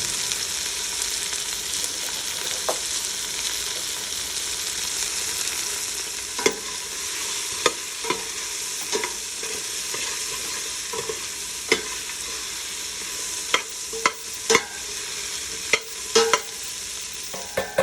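Chopped vegetables sautéing in oil in a hot pan, a steady sizzle. From about a third of the way in, a utensil clicks and scrapes against the pan a dozen or so times as the vegetables are stirred.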